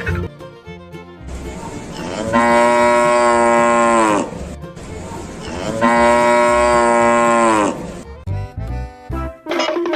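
A cow mooing twice: two long, even calls of about two seconds each, each dropping in pitch as it ends, over light background music.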